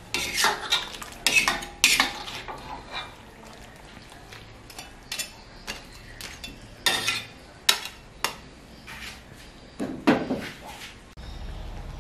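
Metal ladle scraping and clinking against a metal wok while stirring saucy noodles with crab, in irregular strokes. A steady low hum starts near the end.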